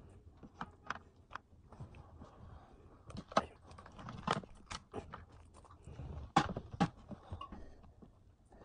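Cooked lobster shell being handled and pulled apart by hand: a scatter of sharp clicks and cracks, loudest a few times in the middle of the stretch.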